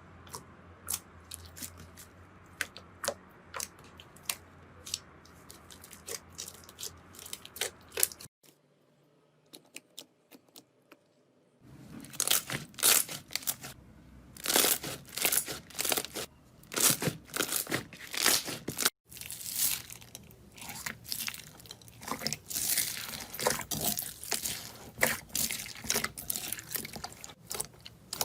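Slime being squeezed and worked by hand, giving a run of sharp crackling clicks and crunches. It drops to a few faint clicks about eight seconds in, then comes back denser and louder about three seconds later.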